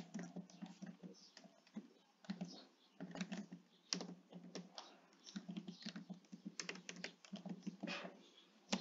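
Typing on a computer keyboard: faint, quick runs of key clicks broken by short pauses.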